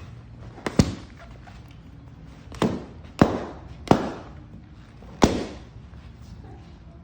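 Balloons popping: about five sharp pops at uneven intervals, each with a short fading tail.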